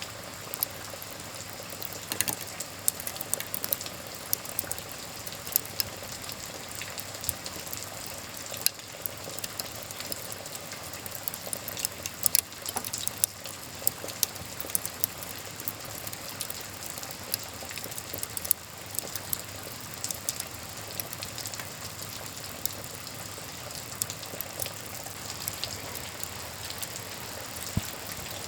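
Wood fire crackling, with frequent irregular sharp pops, over a steady hiss of rain.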